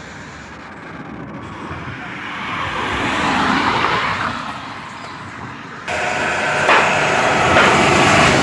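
A vehicle going by on the road, its rushing noise swelling to a peak and fading away. About six seconds in, the sound cuts suddenly to a louder, busier background.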